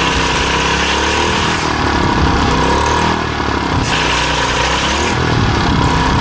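Small 3.5-horsepower gas engine running steadily, driving a homemade stake-making machine. A high hiss rises and drops away several times over the engine's note.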